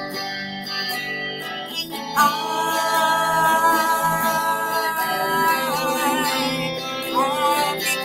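Music: a woman singing along to her own strummed electric guitar, with a long held note from about two seconds in until past five seconds.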